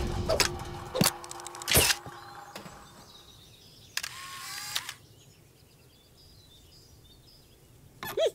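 Cartoon sound effects for an old wooden box camera on a tripod: a few sharp clicks over a fading pair of tones, then about four seconds in a click and a short hiss as the camera appears. After that it is quiet, with faint bird chirps.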